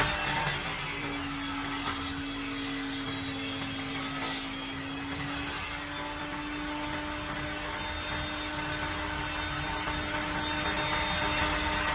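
Power tool cutting wood: a steady motor tone under a continuous sawing hiss, with no back-and-forth strokes. The hiss eases off about halfway through and picks up again near the end.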